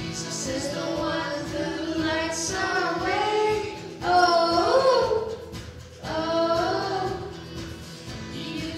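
A woman and children singing a song together into microphones, the woman's voice leading, in sung phrases with short breaks between them.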